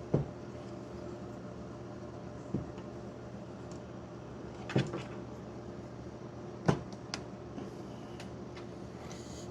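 Several separate knocks and clunks from radial arm saw motor parts being handled and worked loose during a teardown, over a steady low hum.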